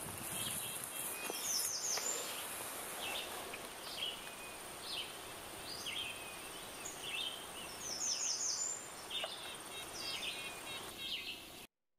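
Outdoor wilderness ambience of birds chirping: repeated short calls and quick runs of downward-sliding chirps over a steady high hiss. The sound cuts off abruptly just before the end.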